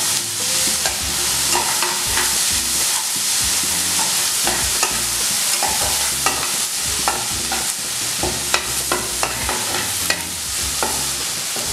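Chopped onions, curry leaves and whole spices sizzling in ghee on high heat, with a spatula scraping and tapping the pan in quick, repeated strokes as they are stirred. The onions are being sautéed toward light golden brown.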